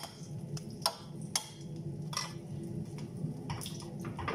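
Egg-and-okra mixture frying in hot oil in a Tefal non-stick frying pan, with a metal spoon clinking sharply against the bowl and pan several times as the mixture is spooned in.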